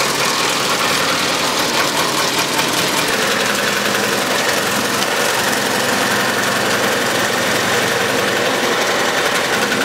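Wood shaving mill driven by an electric motor, running steadily as wood is fed into its hopper and shaved, with a loud, even mechanical noise.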